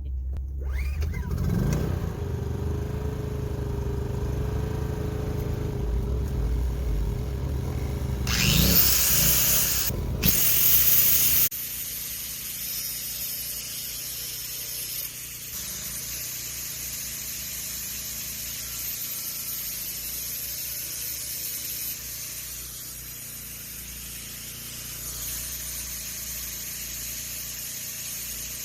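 Die grinder with a cutting disc running, then grinding into a Jackery 290 power station with a loud, harsh grinding noise from about 8 to 11 seconds in. After that it settles back to a quieter steady running sound.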